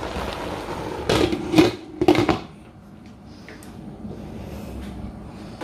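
A glass pot lid is set onto a cooking pot of simmering mustard greens, with a few sharp knocks about one and two seconds in. Under it runs the sound of the greens simmering in water, quieter once the lid is on.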